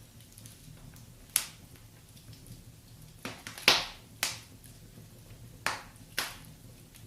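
Wood fire in a fireplace crackling, with about six sharp pops at uneven intervals, the loudest a little past the middle, over a faint steady low background.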